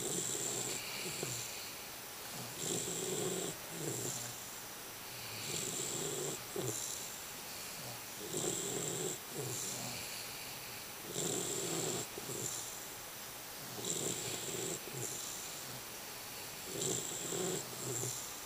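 Snoring in a slow, even rhythm: about seven snores, one every three seconds or so, each followed by a shorter second sound about a second later.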